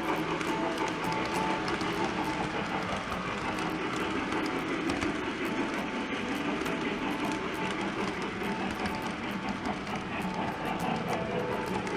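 Model train rolling along its track, a steady running rumble with rapid, uneven clicking of the wheels over the rail joints.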